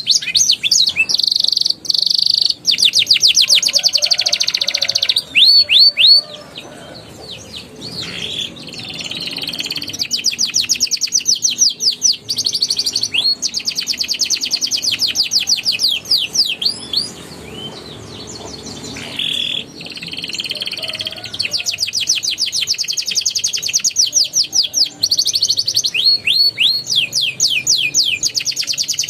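Domestic canary singing a long, loud song of fast rolling trills, each made of rapidly repeated high notes, with two softer, quieter passages partway through.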